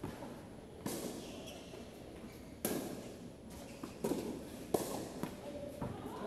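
Tennis ball being hit back and forth with rackets in a rally: about five sharp pops at uneven intervals, ball strikes and bounces, each trailing off in the echo of a covered court.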